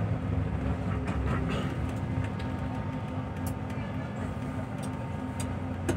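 Passenger bus engine running at a steady low drone as the bus rolls slowly through traffic, heard from inside the cabin, with light clicks and rattles now and then.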